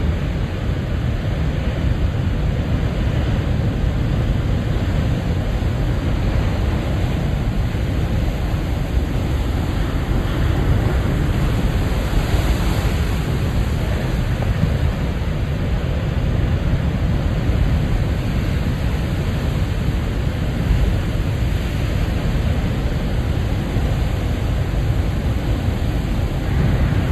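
Big ocean waves surging and breaking at high tide, a steady, loud rush of surf with a deep low rumble, the hiss swelling briefly about twelve seconds in.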